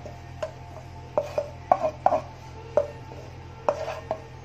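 A spatula knocking and scraping against a nonstick frying pan to empty the fried tempering into a bowl: a series of sharp, irregular knocks, each with a brief ringing of the pan.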